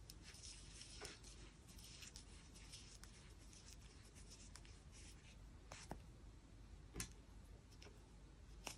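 Near silence: faint rustle of yarn being worked with a crochet hook, with a few soft ticks, the clearest about seven seconds in.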